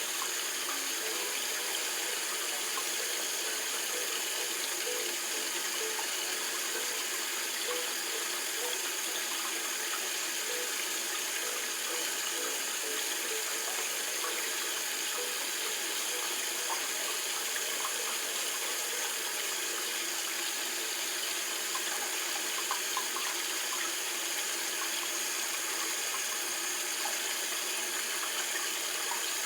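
Water running steadily, an even rushing hiss that stays at one level throughout.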